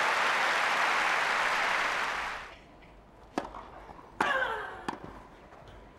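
Crowd applause, dying away about two and a half seconds in. Then a tennis rally on grass begins: sharp racket strikes on the ball, one of them about four seconds in, joined by a player's loud grunt that falls in pitch.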